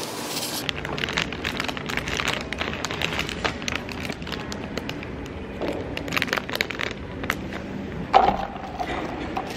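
Thin clear plastic bag crinkling and rustling in irregular bursts as it is opened and pulled off a condensed-milk baguette, with one louder knock about eight seconds in.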